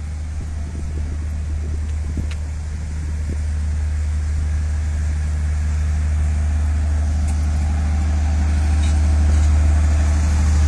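Passenger train rolling slowly past along the platform, with a steady low diesel hum that grows louder toward the end and a few knocks from the wheels in the first few seconds.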